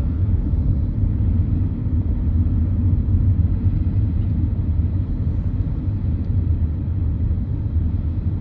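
Steady low rumble on board a cruise boat under way: the boat's engine droning along with wind buffeting the microphone.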